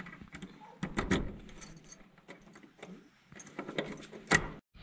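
A steel padlock and keys clinking against the metal bolt of a wooden door as it is unlocked: a string of small metal clicks, with one sharper clack near the end.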